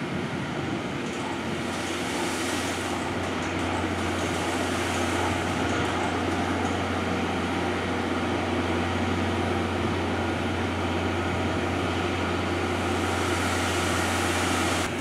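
Steam locomotive C61 20 and its coaches standing at a platform: a steady low hum with hissing, which swells briefly a couple of seconds in and again near the end.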